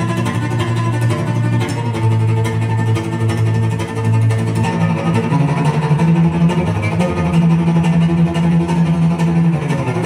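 Music with bowed and plucked string instruments playing long, held low notes, the bass line stepping up in pitch about halfway through, played through a pair of Teufel M200 loudspeakers driven by a Harman Kardon HK 970 amplifier and picked up in the room.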